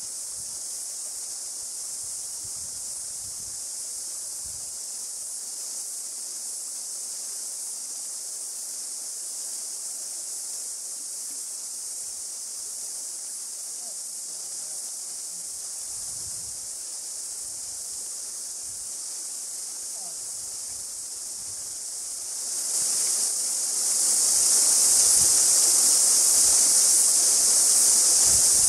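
Steady high-pitched chorus of cicadas from the bush, with the rush of the river beneath it; both grow much louder about 23 seconds in.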